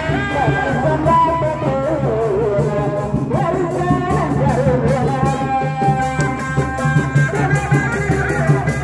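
Sundanese reak folk music played live: a wavering, bending melody over a steady low drone and a regular beat of drums and rattling percussion.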